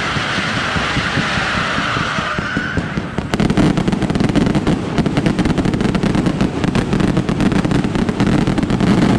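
Aerial fireworks display: a loud hissing rush for about three seconds, then a dense barrage of rapid-fire bangs that run together into a continuous rumble.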